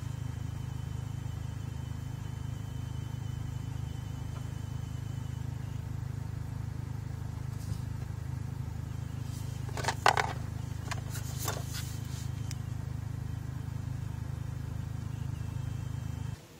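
Steady low hum with a few sharp plastic clicks and rattles about ten seconds in, from handling a GoPro camera's clear plastic housing on its mount and display stand. The hum cuts off suddenly just before the end.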